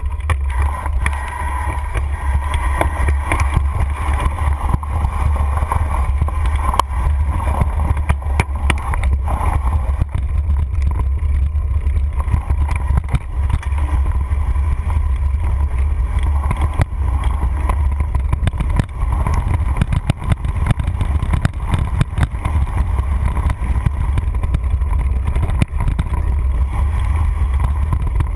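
Mountain bike riding fast over a rough dirt trail, heard from a handlebar-mounted camera: a steady low wind rumble on the microphone with frequent rattles and knocks from the bike jolting over bumps.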